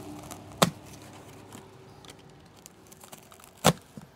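Foam pool noodle being cut and handled: soft crinkly handling noise with two sharp clicks, one about half a second in and one near the end.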